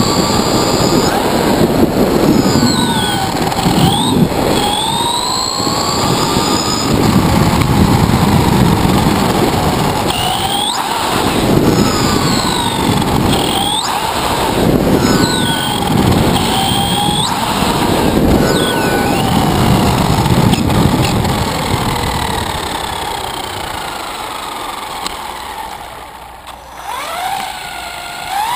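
Brushless electric motor of an Axial Exo RC buggy (Tekin RX8 speed controller, 4600 four-pole motor on 3S) whining, its pitch rising and falling again and again as the throttle is punched and let off. It runs over a rumble of tyres on pavement. The sound dies down as the buggy slows and stops near the end, then a new rising whine starts right at the end.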